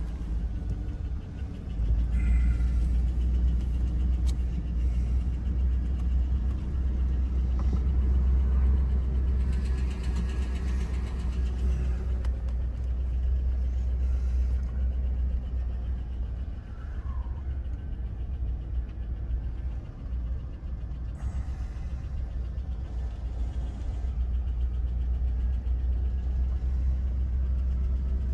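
Steady low rumble of a vehicle's engine and tyres heard from inside its cab while driving, getting louder about two seconds in.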